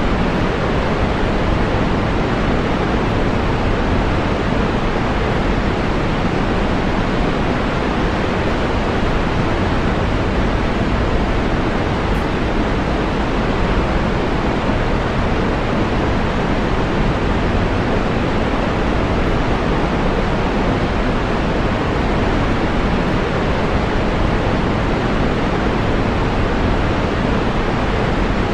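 Waterfall: water falling and rushing in a loud, steady, unchanging wash of sound.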